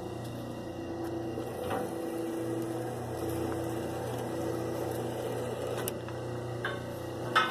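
Steady hum of a small electric motor, with a few scattered clicks of wire being handled and one sharp, louder click near the end.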